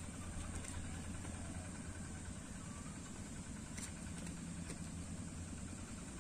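A steady low engine hum, as of a motor idling, over a faint hiss.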